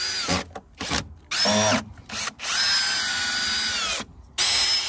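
Ryobi cordless drill driving screws through a timber decking frame into a corner post, in four short bursts. Each burst starts with a rising whine, and the longest runs about a second and a half.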